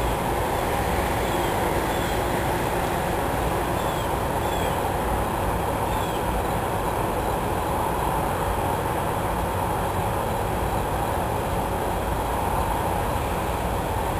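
Steady rushing background noise with no clear beginning or end, and faint short high chirps every second or two.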